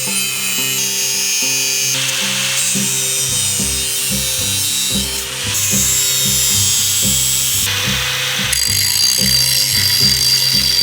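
Background music: a melody of short, repeated notes, with a bass beat coming in about three seconds in.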